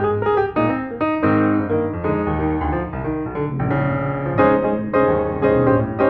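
Piano music with many quick notes over a steady bass.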